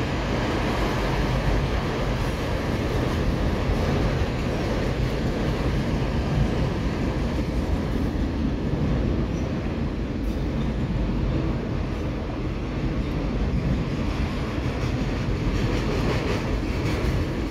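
Autorack freight cars of a CSX train rolling steadily past: continuous noise of steel wheels on rail.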